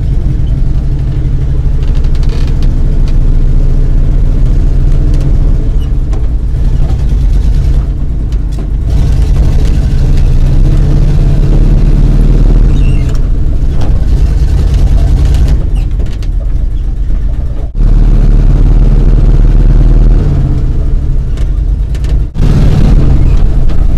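A 1965 Dodge D500's 318 poly V8 runs under load as the truck drives, heard from inside the cab. The engine sound dips briefly three times, about a third of the way in, past the middle, and near the end.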